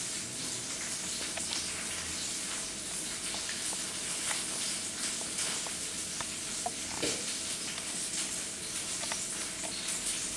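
A cat eating from a bowl: small, irregular clicks of chewing over a steady hiss.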